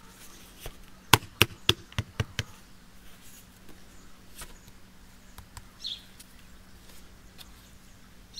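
A quick run of about seven sharp knocks, starting about a second in and lasting about a second and a half, then only a few faint ticks and a short high chirp.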